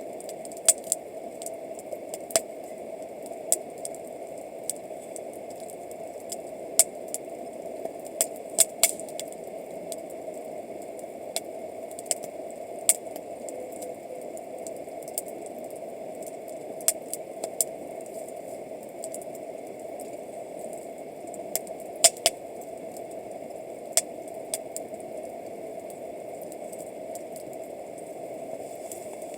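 Wood campfire crackling: irregular sharp pops and snaps, a few much louder than the rest, over a steady hiss.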